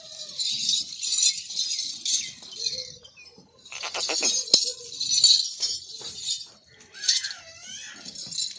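Makhi Cheeni goats bleating in short calls, mixed with rattling and clicking noises.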